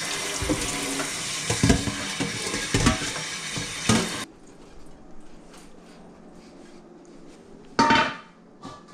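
Kitchen tap running into a stainless steel mixing bowl as it is rinsed, the bowl clanking and ringing against the sink; the water cuts off suddenly about four seconds in. Near the end the steel bowl is set down on a wooden cutting board with one loud ringing clank.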